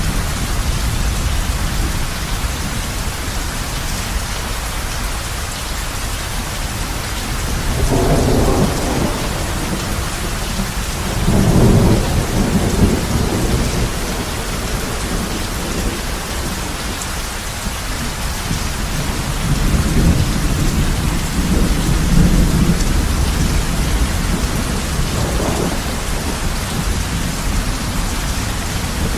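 Heavy rain falling steadily on a roof, with thunder rumbling low through it: two swells near the middle and more in the later part.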